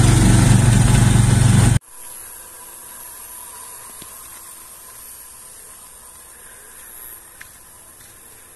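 A motor vehicle's engine running loudly, heard from inside the moving vehicle, cutting off abruptly about two seconds in. What follows is a faint, steady high hiss with a few small ticks.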